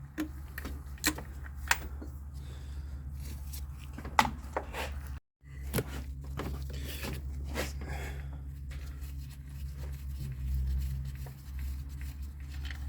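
Scattered clicks and light knocks of hand tools working loose the idler pulley on a Mercedes C230 engine, over a steady low hum. The sound drops out for a moment about five seconds in.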